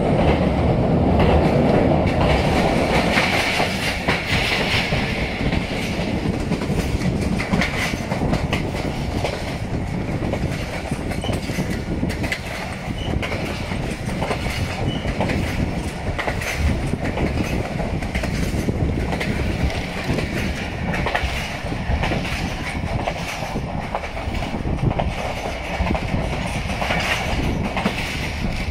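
Passenger train coaches running along the track, a steady rumble with the wheels clattering over the rails, somewhat louder for the first few seconds.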